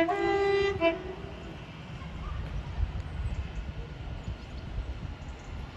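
Train horn sounding one short blast of about a second at the start, stepping between two pitches, followed by a steady low rumble of the train running.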